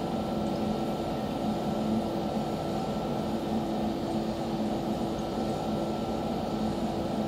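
H180 oxyhydrogen gas generator running with its torch lit: a steady hum with a faint higher whine over an even hiss.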